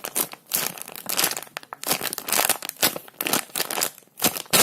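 Crinkling and rustling of a squishy toy's wrapper as it is handled and squeezed, in many short, uneven bursts.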